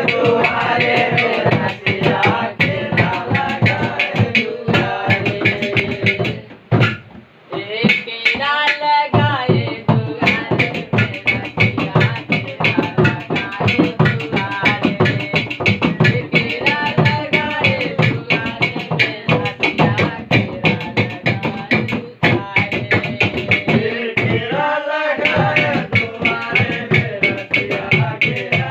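Men singing a folk song together while hands beat out a fast rhythm on a plastic barrel and a plastic drum used as drums. The drumming and singing break off briefly about seven seconds in, then carry on.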